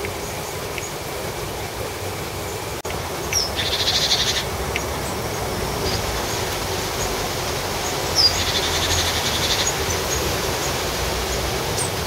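A small songbird singing twice, about four seconds apart: each time a short high note, then a rapid high trill of about a second, over steady outdoor background noise.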